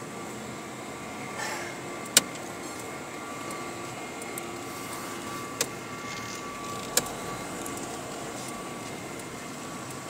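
Steady hum of a car heard from inside the cabin as it drives slowly, with three sharp clicks, the loudest about two seconds in.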